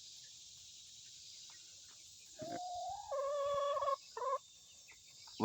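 A rooster crowing once, starting about two and a half seconds in. The crow lasts about two seconds, its pitch stepping up partway through, and ends on a short final note.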